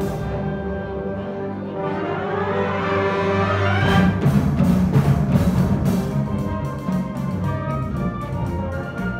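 Student concert band playing a Cuban dance piece: held brass and wind chords with a rising run. About four seconds in comes a louder full-band entry, and then percussion keeps a quick, steady rhythm under the winds.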